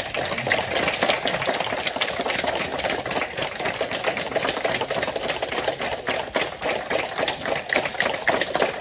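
Audience applauding: many hands clapping, dense and steady.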